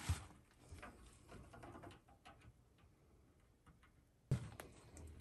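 Faint clicks and small taps of copper tubing and a brass expansion valve being handled and fitted together at an air-conditioner evaporator coil, with a louder thump about four seconds in.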